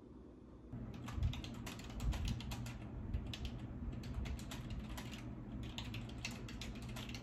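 Typing on a computer keyboard: quick, irregular key clicks that begin about a second in.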